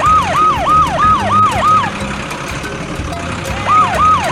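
Emergency-vehicle siren on a fast yelp, each quick rise-and-fall about a quarter second long. It sounds for about two seconds, breaks off, and starts again near the end, over a steady low hum.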